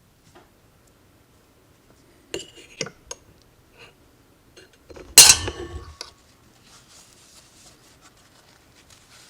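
Small metal parts being handled: a few light clinks, then one loud metallic clatter with brief ringing about five seconds in, followed by faint rustling.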